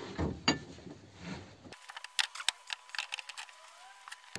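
Light, irregular clicks and taps of metal car strut parts being handled and worked at a bench vise.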